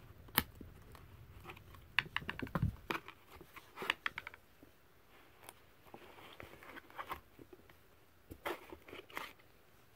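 Stiff cardboard pages of a small miniature-golf board book being handled and turned, giving scattered taps, clicks and short rustles, with a quick run of clicks about two seconds in.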